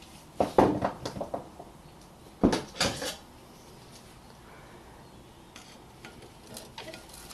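Metal tools and the brake caliper bolt clinking and knocking as the 14 mm bolt is taken out: a quick run of clinks about half a second in, two louder clanks around two and a half to three seconds in, then only faint ticks.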